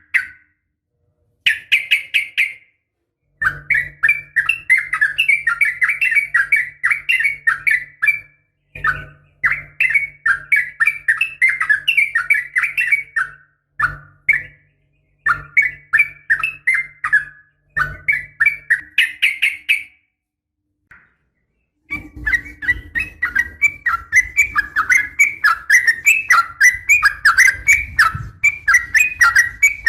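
Yellow-vented bulbul (trucukan) chattering in rapid runs of bright chirps, several bursts broken by short silent gaps, the longest pause about two-thirds of the way through. The call is a female's call to males, of the kind used as a lure to set caged males singing. A low steady hum lies under the first half.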